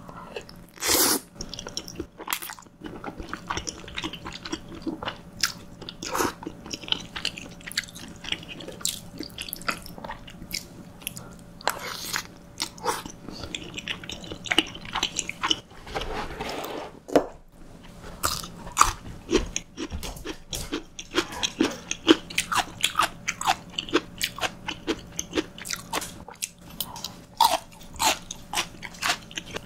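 Close-miked mouth sounds of a person chewing soft, saucy wide-noodle cream pasta: wet chewing and lip smacks, with many irregular sharp clicks.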